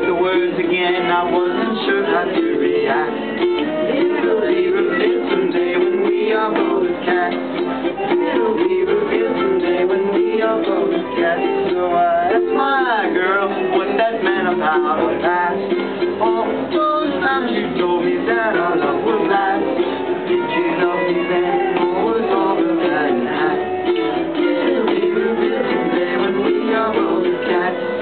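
Ukulele playing an instrumental passage of many quickly picked and strummed notes, with a small room's echo.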